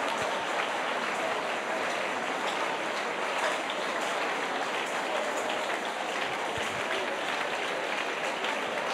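A large congregation praying aloud all at once: a steady, dense babble of many voices with no single speaker standing out.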